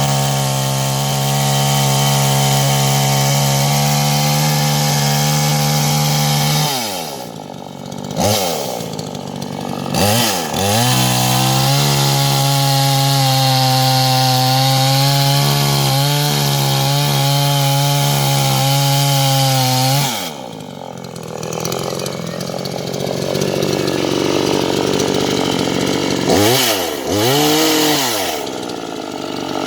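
Chainsaw running at steady high speed while cutting firewood, twice letting off so the motor winds down, with short revs of the throttle in between.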